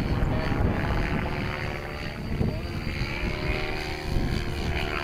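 Radio-controlled Whiplash 90E model helicopter flying at a distance: its rotor and motor whine slides up and down in pitch as it manoeuvres. Heavy wind rumble on the microphone runs underneath.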